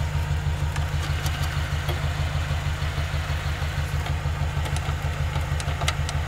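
A steady low hum that pulses evenly several times a second, with faint light clicks over it.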